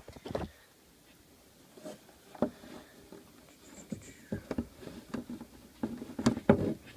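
Scattered light taps, knocks and rustling from handling the ball python's enclosure. There is a sharper knock about two and a half seconds in and a flurry of knocks near the end.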